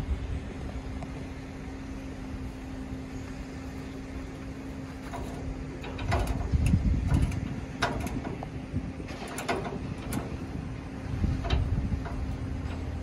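Metal clanks and clinks of a trailer coupler latch and safety chains being handled on a tow hitch ball, a run of sharp knocks between about six and ten seconds in, over a steady low hum.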